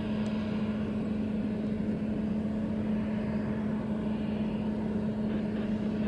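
Jet engines of a Boeing 777 freighter taxiing close by at idle thrust: a steady rush of noise with a constant low hum.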